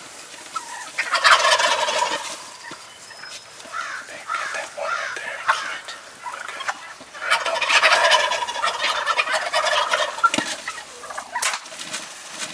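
Several wild turkey toms gobbling in two loud bouts, about a second in and again around seven seconds in, with smaller calls between.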